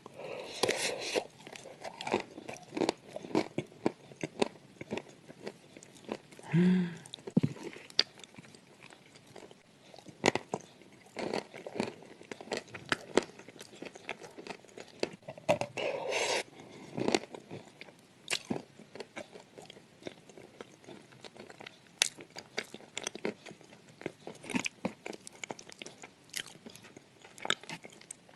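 Close-miked crunching and chewing of baked edible sand clay eaten with a soft clay paste: irregular crisp crackling bites and wet mouth sounds.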